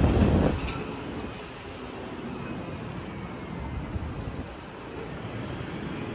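Outdoor city street ambience with a steady hum of distant traffic; a loud rumble of wind on the microphone cuts off about half a second in.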